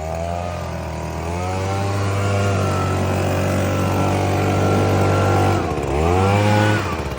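Petrol string trimmer engine revving up from a low speed and held at full throttle for several seconds, then the throttle let off twice near the end with a short rev in between.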